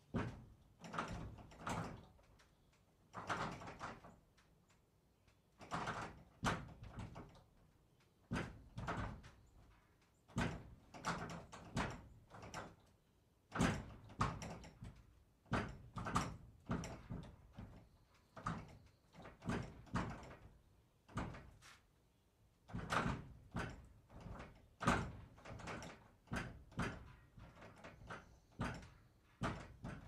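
Barn door being worked open and shut over and over: a long series of short bursts of knocking, rattling and scraping, each a second or less, with brief pauses between.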